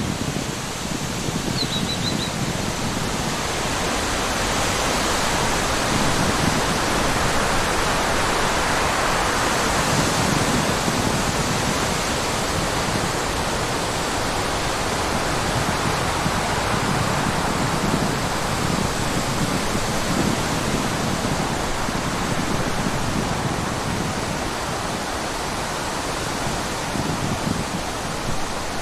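Steady rushing water, like a stream or small waterfall, filling the whole sound with an even hiss that swells slowly. A short high chirp comes about two seconds in.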